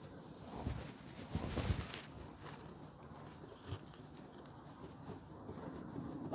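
Faint handling noises: a few soft knocks and light rustling, with no engine running.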